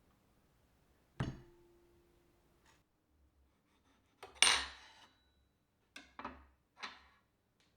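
Dishes and kitchenware being handled and set down, a few separate knocks and clinks. A knock about a second in leaves a short low ring, a louder clatter comes about four and a half seconds in, then three smaller clinks near the end.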